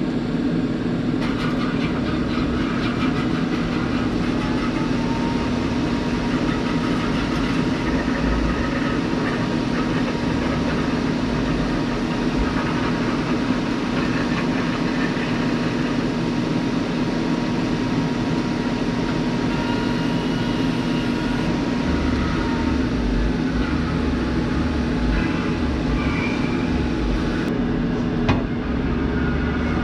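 Electric arc welding: a steady crackling hiss from the arc over a constant machine hum.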